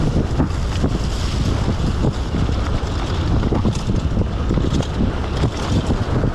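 Wind buffeting an action camera's microphone during a fast downhill run on a forest dirt track, with constant small knocks and rattles from riding over bumps.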